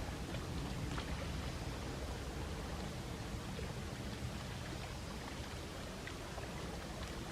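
Gentle sea waves washing on the shore: a steady wash of water with a low rumble beneath it.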